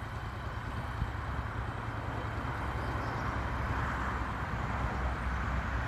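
Motorcycle engine idling steadily, growing a little louder from about three seconds in.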